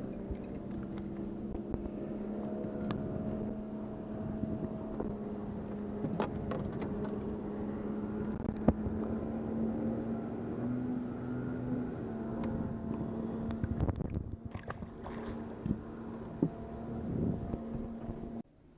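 A boat motor running steadily with a low hum, shifting slightly in pitch partway through, with a few light clicks and knocks over it. The sound cuts off suddenly near the end.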